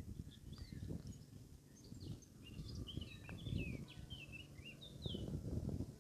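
A small songbird singing a twittering run of quick, high chirps and short slurred notes from about two and a half to five seconds in, over a low, uneven rumble on the microphone.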